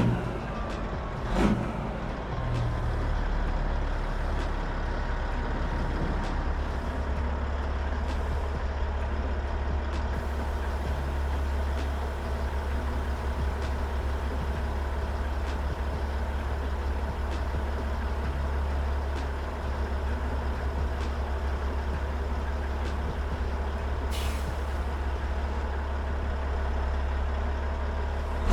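Semi truck's diesel engine running steadily with a deep drone. Near the end there is a short hiss of air, like an air brake or air release.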